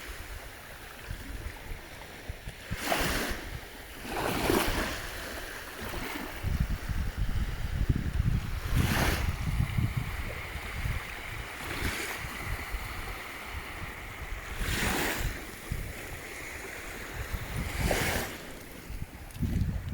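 Sea waves washing onto the beach, several swells a few seconds apart, with wind buffeting the microphone as a low rumble.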